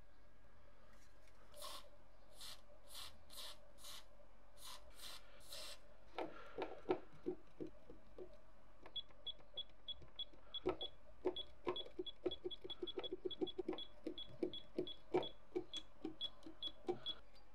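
Aerosol contact cleaner sprayed onto a circuit board in about eight short hissing bursts over the first six seconds. Then the board's small tactile push-button switches are pressed over and over, giving rapid, uneven clicks, many with a short high tick.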